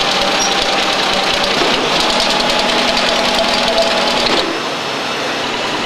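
Longford six-station friction-feed collator running: a rapid, steady mechanical clatter over a low hum as it feeds and counts sheets. The clatter eases off and gets a little quieter about four and a half seconds in.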